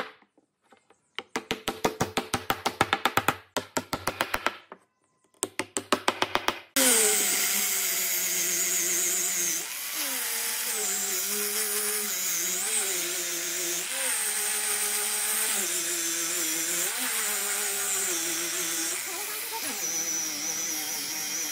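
Rapid hammer taps in three quick runs, setting wooden bowtie keys into their recesses in a tabletop. About seven seconds in, an electric orbital sander starts up on the wood and runs steadily to the end, its pitch wavering as it is worked across the surface.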